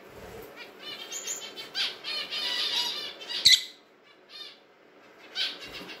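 Peach-faced lovebird chirping, a quick run of high calls with the loudest, sharpest one about three and a half seconds in and another short call near the end.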